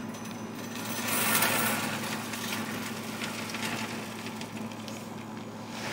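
Wood pellets poured from a bag into a pellet grill's hopper, a rattling hiss that is loudest about a second in, over the steady hum of the grill running as it preheats.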